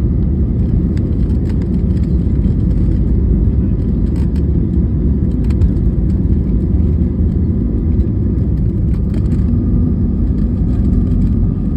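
Airplane engines running with a steady, loud low rumble.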